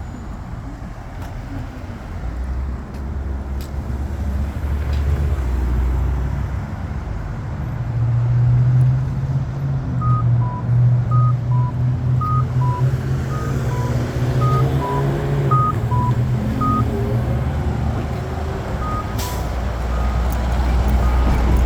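Road traffic at a signalled intersection, with a heavy vehicle's engine running loudly and passing through its middle. A high-low two-tone beep repeats about once a second from about halfway in, stops briefly, then resumes near the end.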